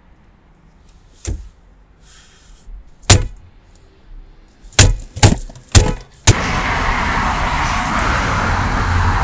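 A few sharp knocks and thumps, the last four in quick succession, followed by steady street noise with traffic.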